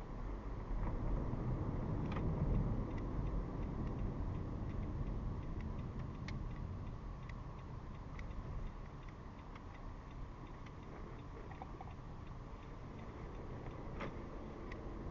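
Car cabin noise: a steady low engine and road rumble that eases off a little after the first few seconds, with a faint, regular ticking over it.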